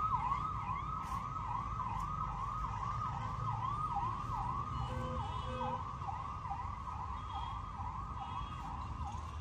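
An electronic siren wailing in a fast, steady yelp, its pitch sweeping up and down two to three times a second, over a low rumble.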